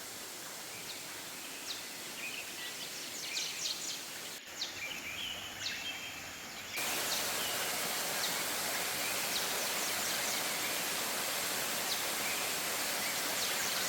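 Steady rushing of a waterfall, which gets suddenly louder about seven seconds in, with short high chirps over it.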